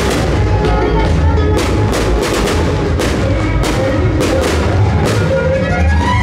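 Orchestral music with strings and drums, with many sharp hits running through it.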